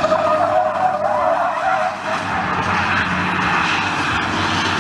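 Tyres of a truck tractor unit squealing as it drifts and spins on tarmac, with its engine running underneath. The squeal's tone sags slightly and fades about a second and a half in, leaving a rushing scrub of sliding tyres.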